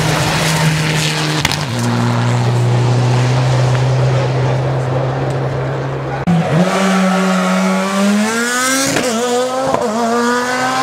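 Rally car engines at full throttle, heard in quick cuts. First an engine holds steady high revs. Then, about six seconds in, a car accelerates hard, its note climbing, with two brief breaks for gear changes near the end.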